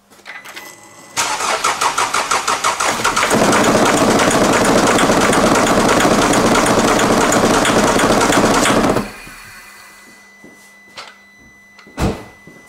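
Mercedes OM651 four-cylinder diesel cranked by the starter for about two seconds, then catching and running steadily for about six seconds before stopping. It starts with cylinder 4's injector unplugged, which the owner takes to mean cylinder 4 is bad. A single knock near the end.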